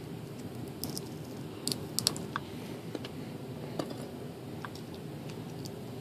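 Fingers picking at tape on a small plastic wire connector: a few scattered light clicks and crinkles over faint steady room noise.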